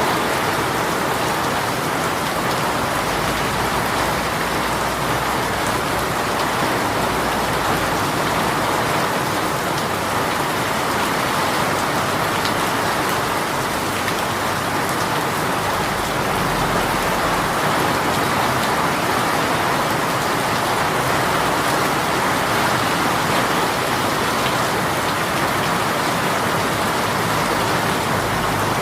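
Rain shower falling steadily, an even hiss of rain pattering on surfaces with faint scattered drop ticks.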